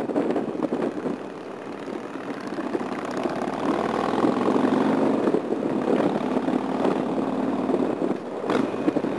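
Harley-Davidson motorcycle engine running steadily at cruising speed, heard together with dense wind and road noise.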